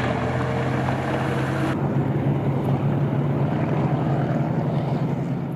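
Heavy tank engine running at a steady, even hum with a hissing rush over it, starting and stopping abruptly like a dropped-in sound clip.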